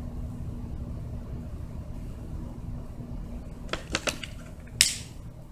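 Steady low hum of background noise, then a short cluster of sharp clicks about four seconds in and a louder single click shortly after.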